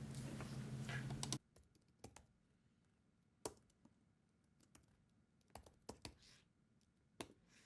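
Faint, scattered keystrokes on a computer keyboard, single sharp clicks at irregular gaps. A steady hiss with a low hum cuts off suddenly about a second and a half in.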